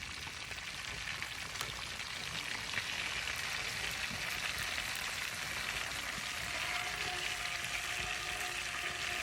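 Catfish sizzling as it fries in hot oil in a pan over a rocket stove: a steady hiss with small crackles.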